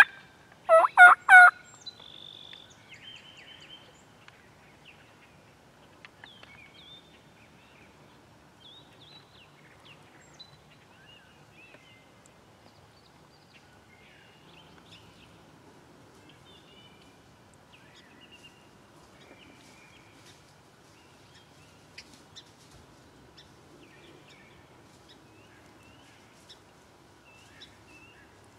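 Wild turkey gobbling, a short loud burst about a second in. After it, only faint scattered chirps of small songbirds.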